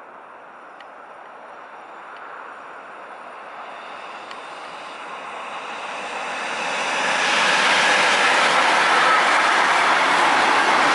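Electric-hauled freight train with two locomotives and wagons carrying lorry semi-trailers, approaching and then passing close by. Its rolling noise swells from faint to loud by about seven seconds in, then stays loud as the wagons go past.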